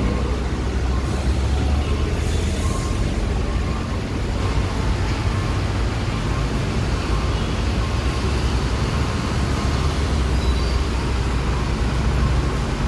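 Steady low rumble of heavy road traffic, buses and trucks with engines running in a queue below.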